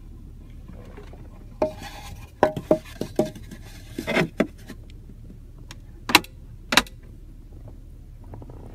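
Mercedes-Benz GLE450 AMG Coupe centre-console storage compartment being handled: a run of clicks, knocks and rubbing of hard trim, then two sharp clacks less than a second apart, over a low steady hum.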